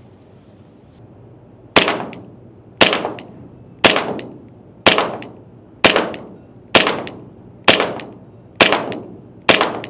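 PTS ZEV 1911 gas blowback airsoft pistol firing nine slow, evenly spaced shots, about one a second, starting nearly two seconds in. Each shot is a sharp crack of the gas blowback action with a short ring-out after it.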